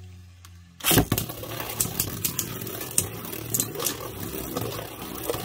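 Beyblade Burst spinning tops in a plastic stadium: a steady faint hum from a single top spinning, then about a second in a loud crack as a second top comes into the bowl. After that comes constant scraping and rapid clacking as the two tops spin and collide on the stadium floor.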